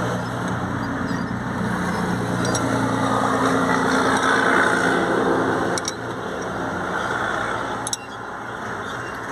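A truck's engine runs steadily nearby, its hum shifting in pitch partway through and fading about six seconds in. A sharp click comes about six seconds in and another about eight seconds in.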